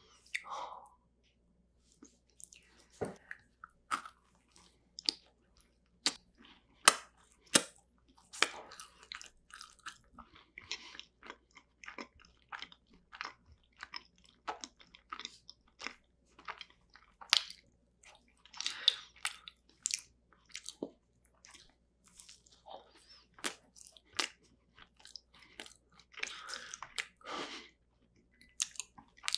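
Close-miked eating of cream-filled macarons: irregular sharp crunches as the shells are bitten and broken, with softer, wet chewing between them.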